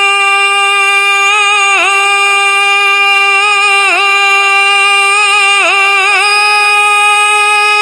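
Qawwali singer holding one long, high sung note, ornamented with brief dips and quick wavering turns in pitch every second or two. The note stops just at the end.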